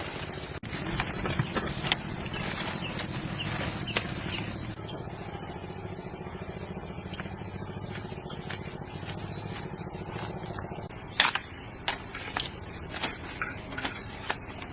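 A motor or engine running steadily with a low hum, stopping about eleven seconds in, followed by a few sharp clicks and knocks. A thin, steady insect-like tone sounds high above throughout.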